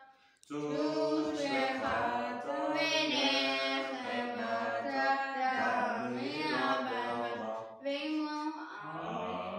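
A boy chanting a Hebrew prayer aloud, unaccompanied, in long held notes that glide from pitch to pitch.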